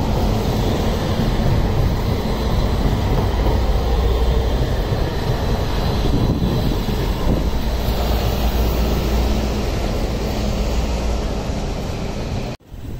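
CAF Urbos 3 tram running past at close range along street track, a steady rumble and hiss of wheels and running gear. It cuts off suddenly near the end.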